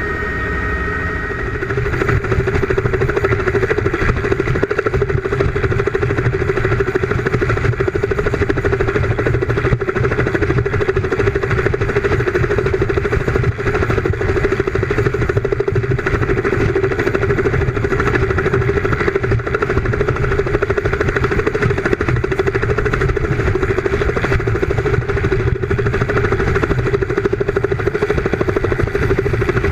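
Helicopter hovering close overhead: steady rotor and engine noise with a rough rumble of rotor downwash on the microphone, getting louder about two seconds in.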